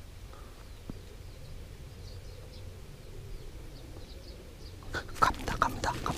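Quiet outdoor air with a few faint bird chirps; about five seconds in, a burst of rustling and crunching as feet move through dry grass and leaves.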